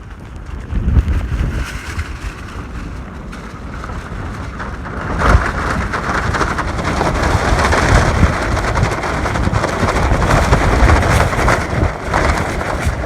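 Heavy rain with wind gusting on the microphone, loudest from about five seconds in.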